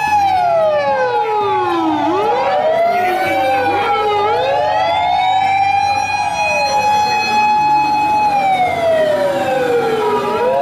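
Several fire engine sirens wailing together, their pitches sliding down and back up in long sweeps over a steady tone; the sound starts and cuts off abruptly.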